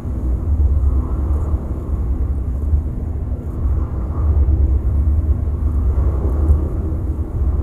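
Steady muffled low rumble of pool water recorded underwater, with a faint steady hum through it.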